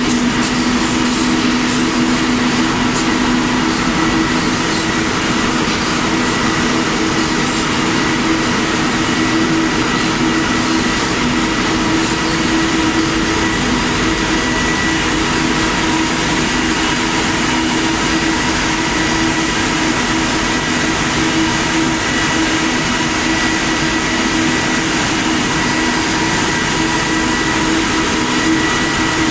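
Running spinning-mill machinery, a ring spinning frame and its linked automatic cone winder: a loud, steady whir and hiss with a couple of constant low hum tones, unbroken throughout.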